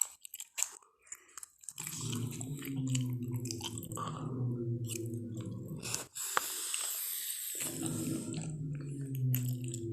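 Pachyrhinosaurus dinosaur sound effect: after a couple of seconds of scattered clicks, a low, pitched growl runs for about four seconds. It is broken by a sharp click and a breathy hiss, and then the low growl returns near the end.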